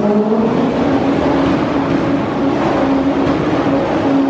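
Honda Civic engine revved and held at high revs, loud. Its pitch climbs over the first second, then holds steady.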